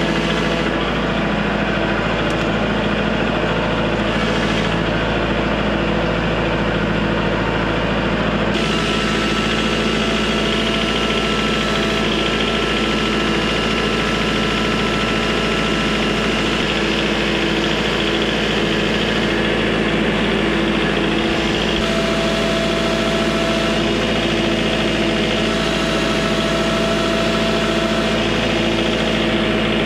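Kubota L4701 tractor's diesel engine running steadily while it moves a crate of split firewood on pallet forks. The engine's tone changes about eight seconds in.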